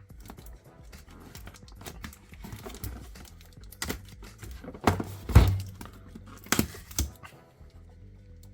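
Packaging being opened and handled: crinkling and tearing with scattered clicks and knocks, the loudest a thud about five seconds in.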